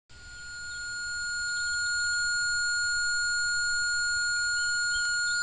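A steady high ringing tone, several pitches held together, fading in over about two seconds and then holding level over a faint low rumble.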